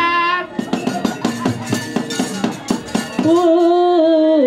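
Live music for a wayang puppet show: fast, busy percussive strikes, with a voice singing a held note at the start and another held note from about three seconds in that steps down in pitch near the end.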